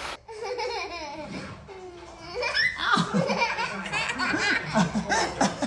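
A toddler and an adult laughing together.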